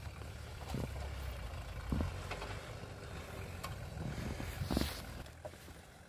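Off-road 4x4's engine running with a steady low rumble as it drives through snow. A few short knocks or crunches come about a second in, at two seconds, and near five seconds.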